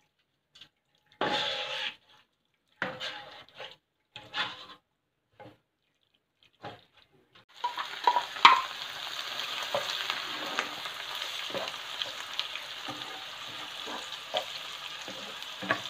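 Deep-frying in a wok: for the first few seconds, short bursts of sizzle and scraping with silent gaps between them. About 7.5 s in, pieces of tempe are scraped from a bowl into the hot oil with a spatula, with a few sharp clicks, and a steady frying sizzle with stirring follows.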